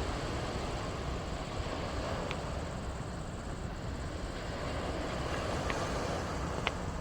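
Steady rushing of heavy floodwater pouring through a dam's spillway. A few brief high chirps sound over it about two, five and a half and six and a half seconds in.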